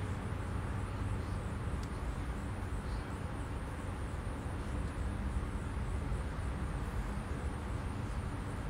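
Steady low background rumble with a hiss above it, unbroken and even in level, with no distinct events.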